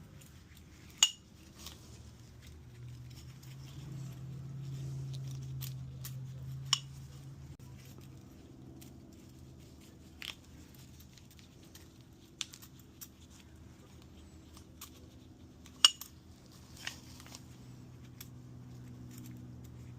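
Scattered sharp metallic clinks and taps of hand tools and engine parts being handled during piston installation, over a low steady hum. The sharpest clinks come about a second in and near the sixteen-second mark.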